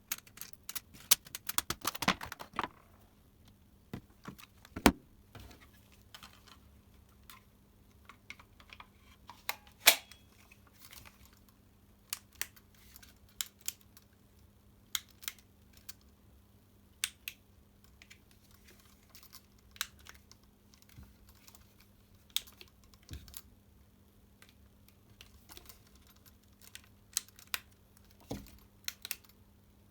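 Irregular light clicks and taps of small hard plastic parts being handled, with a sharper click about five seconds in, after which a faint steady hum sets in.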